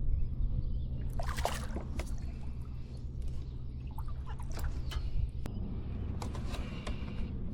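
Water splashing and dripping from a kayak paddle moving through the water in several irregular strokes, over a steady low rumble.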